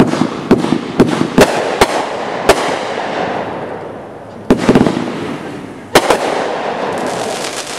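Aerial fireworks going off: a quick series of sharp bangs in the first two and a half seconds, further bursts about four and a half and six seconds in, then a fast crackle near the end.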